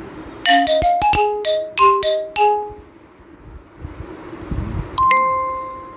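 Electronic chime jingle: a quick run of about eight to ten short bell-like notes, then a single ringing ding about five seconds in that slowly fades.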